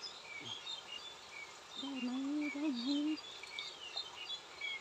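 Small birds chirping in many quick, short notes, with a wavering, drawn-out voice about two seconds in that lasts about a second.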